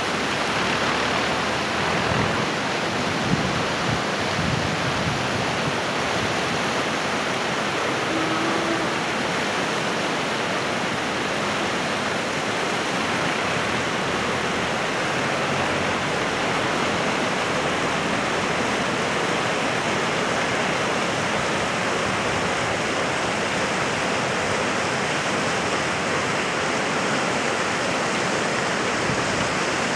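Steady rushing of a mountain stream, an even, unbroken wash of water noise.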